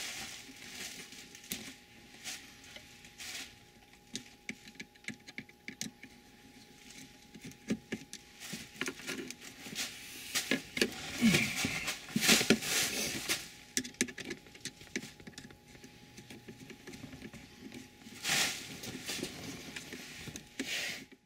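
Handling noise from refitting a car's engine computer under the dashboard: scattered clicks, knocks and rustling of plastic and metal parts, busiest about halfway through and again near the end.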